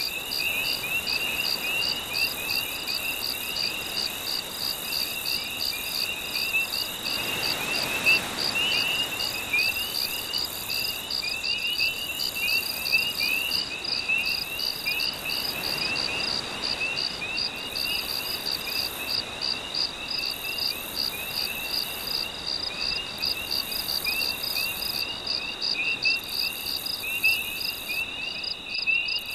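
Night-time chorus of insects and frogs: a steady, evenly pulsing high trill over a constant high tone, with short chirping calls repeating beneath it. A soft wash of surf swells up twice, about eight seconds in and again about halfway through.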